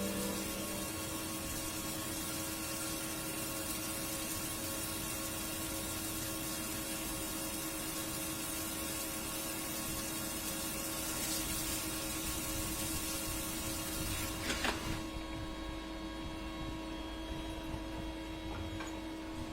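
CNC machine running: a steady hiss over a steady hum with several fixed tones. About fifteen seconds in, the hiss drops away, leaving the hum.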